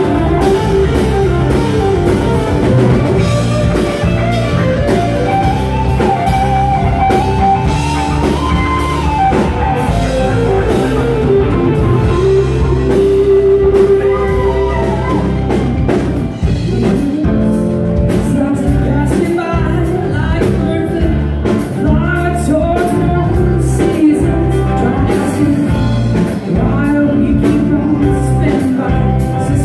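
Live jam band playing loud rock with electric guitar, bass and drum kit, and singing over it.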